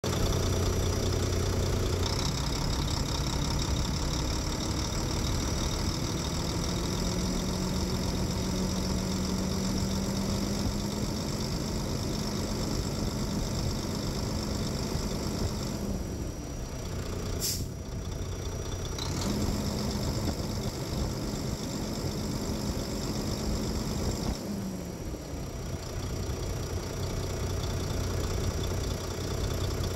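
Volvo six-cylinder turbo diesel truck engine running with the hood open. It starts at idle, is held at raised revs twice for several seconds at a time, and drops back to idle each time. There is one sharp click partway through.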